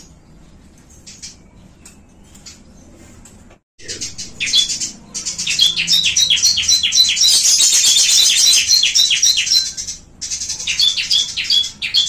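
Small caged songbirds chirping. A few faint chirps come first, then from about four seconds in a loud, dense run of rapid high chirps lasts about six seconds. After a short break, more bursts of chirps come near the end.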